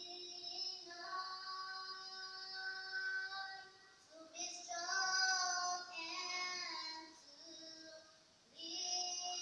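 A group of schoolgirls singing together in held, drawn-out notes, in two phrases with a short break about four seconds in and another just before the end.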